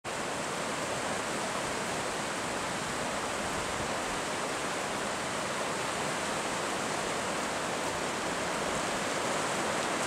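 Ryusei Falls (Shooting Star Falls), a tall waterfall plunging down a cliff, giving a steady, even rush of falling water.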